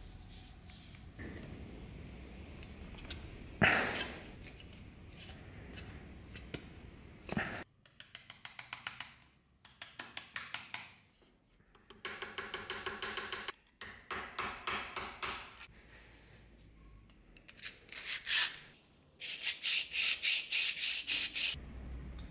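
Sandpaper rubbing along a dagger scabbard, with a sharp knock a few seconds in. Then short bursts of quick back-and-forth filing strokes on a small metal scabbard fitting held in a vise.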